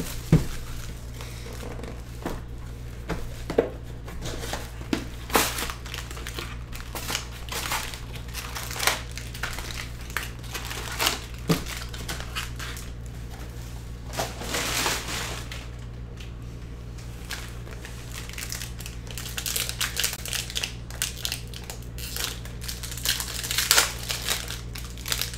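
Plastic cellophane shrink wrap and foil trading-card pack wrappers crinkling as they are handled, peeled and torn open, in irregular bursts of crackling.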